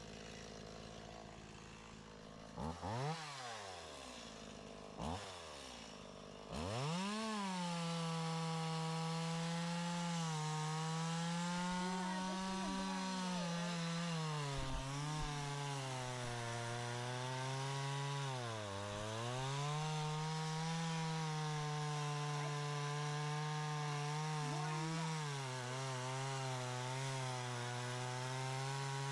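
Two-stroke chainsaw firing briefly twice, then starting about six seconds in and running hard as it cuts through wood, its pitch sagging under load and recovering.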